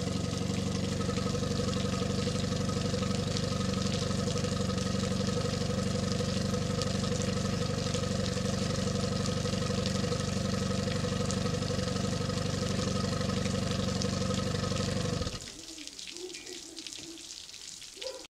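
Evinrude E-TEC 30 hp outboard, a direct-injection two-stroke, running steadily on a flushing stand, then shutting off abruptly about fifteen seconds in. After it stops, only faint water splashing from the flushing hose remains.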